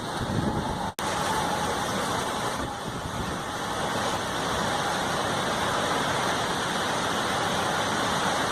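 Strong gale-force wind blowing steadily, a dense rush of wind noise; the sound cuts out for an instant about a second in.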